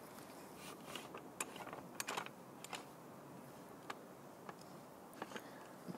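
Faint, irregular small clicks and creaks of a surveying tripod's leg clamp screws and fittings being tightened by hand.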